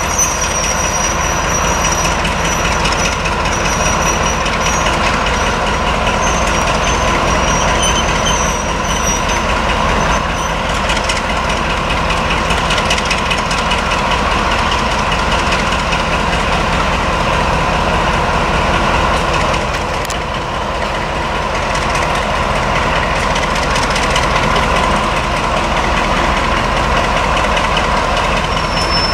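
Class 35 Hymek diesel-hydraulic locomotive's Maybach V16 engine running loud and steady under power as it hauls a train of coaches slowly forward, with only a slight dip about two-thirds of the way through.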